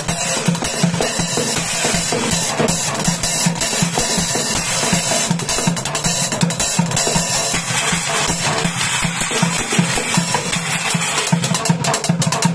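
Street drumming on recycled junk: plastic buckets, water jugs and metal pots struck with drumsticks in a fast, steady beat, with deep hollow thuds from the buckets under sharp clanking strokes.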